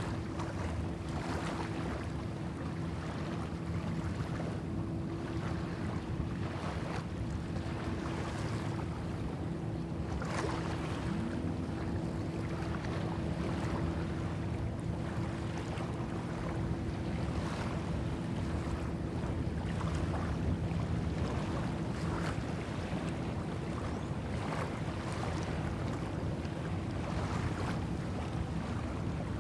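Small waves lapping and washing over a sandy lagoon shore in soft, irregular surges every second or two, over a steady low hum and rumble.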